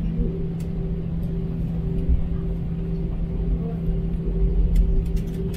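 Cabin noise of an Airbus A320 with CFM56 engines rolling on the ground after landing: a steady engine hum over an uneven low rumble.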